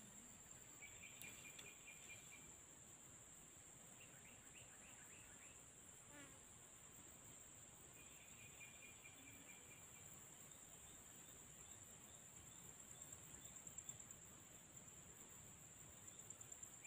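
Faint, steady, high-pitched insect drone, with a few short chirping trills now and then.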